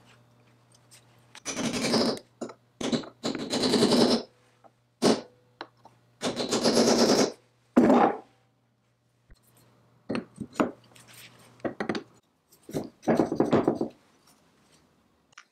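Antique cast-iron Clipper No. 3 belt lacer being worked by hand: several bursts of rapid metallic clatter, the longest lasting about a second, in two groups with a pause near the middle.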